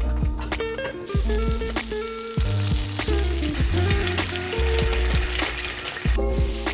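Food frying in a pan: a steady sizzle with short clicks of a utensil stirring it, over background music.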